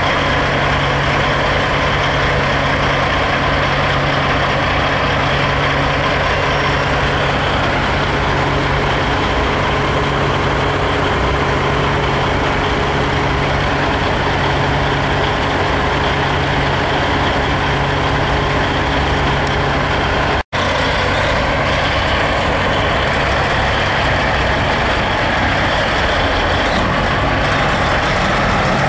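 Diesel big-rig truck engines idling and moving slowly past, a steady low engine drone with a dense rush of noise over it, broken by a brief cut about two-thirds of the way through.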